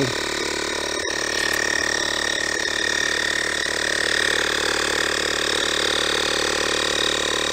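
Rechargeable portable tire inflator's small compressor running steadily while pumping up a car tire: a steady whine over a rapid chatter, with a brief click about a second in.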